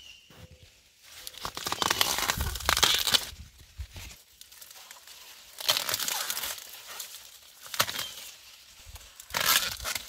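Ears of sweet corn being snapped off their stalks by hand, with the corn leaves and husks rustling and tearing. A long stretch of rustling and snapping runs from about one to four seconds in, with shorter bursts near six, eight and nine and a half seconds. The ears break off easily, a sign that they are ready to pick.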